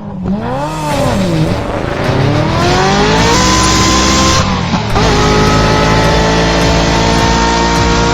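A sports-car engine revving: two quick throttle blips, then a long rising rev that holds, drops sharply about five seconds in like a gear change, and settles into a steady high-revving run.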